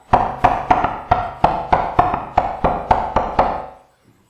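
Recorded hand claps from one person played back: about a dozen sharp claps in a steady run of roughly three a second, with clean gaps between them after noise removal. The claps are loud enough that some of them clip.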